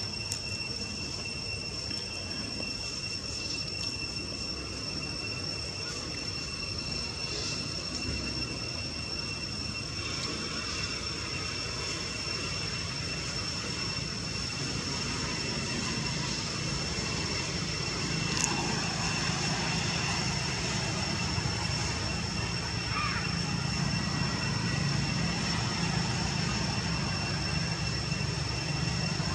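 Steady low engine drone that grows a little louder through the second half, with two thin, steady high-pitched tones running over it.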